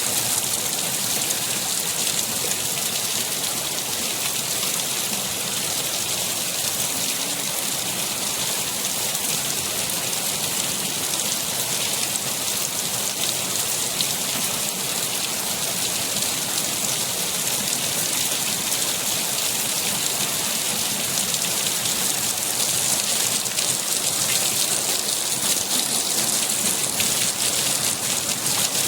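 Steady heavy rain, a dense even hiss of drops with fine patter.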